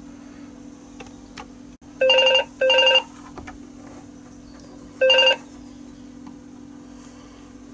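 Three short, loud electronic ringing tones over a steady low hum: two close together about two seconds in and a third about three seconds later, each starting and stopping abruptly.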